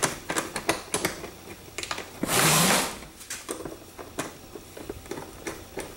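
Hand nut driver turning stainless steel nuts and bolts on a plastic pump basin lid: a run of small metallic clicks and taps, with a short rushing scrape about two and a half seconds in.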